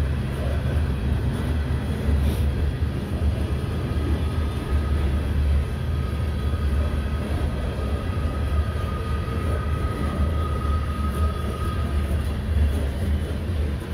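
Freight train of open coal hopper cars rolling past close by: a steady heavy low rumble of wheels on rail. A faint high whine comes in through the middle and stops near the end.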